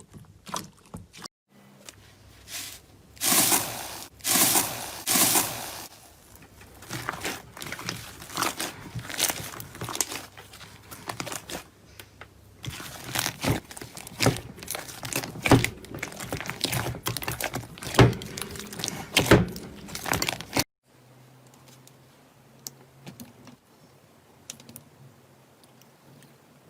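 Slime being pressed, poked and squeezed by hand, giving dense crinkly crackling, sticky pops and small clicks in irregular bursts. The sound cuts to a new clip about a second in, and again near the end, where it turns much quieter with only faint scattered clicks.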